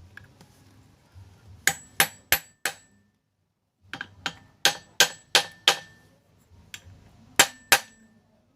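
A small hammer or metal tool tapping a metal part, sharp metal-on-metal knocks each with a brief ring. They come in groups: four quick taps, a short pause, about six more, then two near the end.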